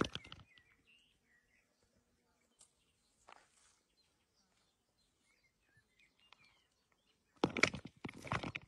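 Quiet outdoor air with faint, scattered bird chirps. Then, about seven and a half seconds in, loud crunching scrapes on gravel begin.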